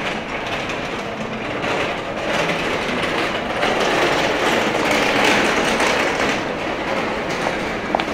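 Loud street noise, an even rushing din that swells to its loudest about halfway through and then eases, with a couple of sharp clicks near the end.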